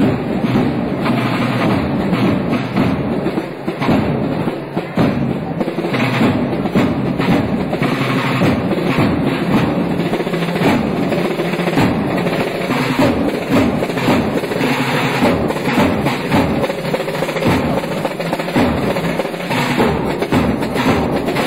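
Snare and bass drums of a Holy Week procession band playing a march, with snare rolls, continuing without a break.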